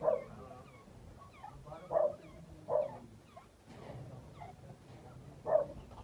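Four short, loud animal calls at uneven gaps, with faint high chirps behind them.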